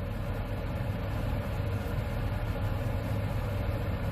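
Car engine idling steadily, a low hum heard from inside the stationary car's cabin.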